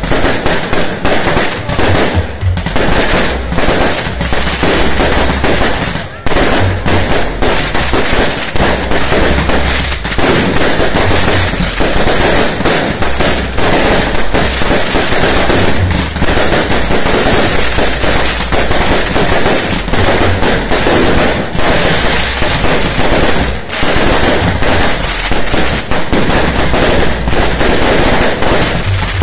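Firecrackers and fireworks going off in a dense, continuous barrage of rapid bangs and crackles, like machine-gun fire.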